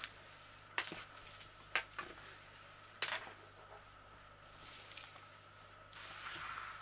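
Plastic release film on a diamond-painting canvas being pressed and smoothed by hand: three sharp crackles of the film about a second apart, then softer rustling as palms slide across the sheet near the end.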